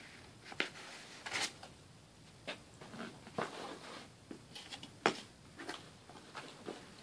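Scattered light clicks and taps with faint rustling between them, the sound of objects being handled and set down on a table; the sharpest click comes about five seconds in.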